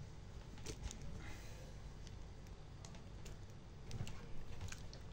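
Faint, scattered light clicks and taps at irregular intervals, with a couple of slightly louder knocks about a second in and near the end, over a low room hum.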